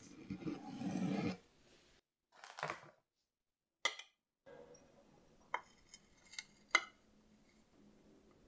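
Knife pressing down through a soft, glazed Oreo chocolate cake, a muffled crumbly cutting sound. Then a metal cake server scrapes and gives a few sharp clinks against the plate as it slides under a slice and lifts it.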